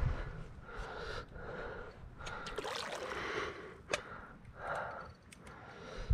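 A person breathing heavily in a series of noisy puffs, about one a second, as he strains to reel a fish up to the kayak. A single sharp click sounds about four seconds in.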